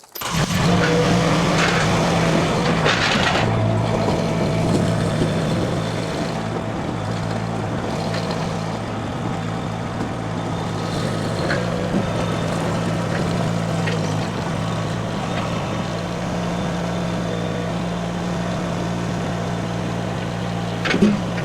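Mini skid steer engine running steadily at a constant speed, with a short clunk near the end.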